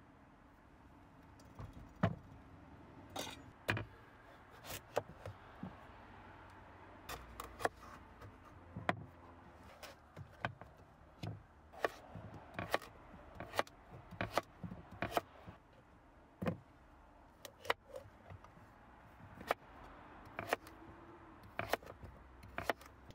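Kitchen knife cutting butternut squash on a wooden cutting board: irregular sharp knocks as the blade goes through the firm flesh and hits the board, roughly one or two a second, starting about two seconds in.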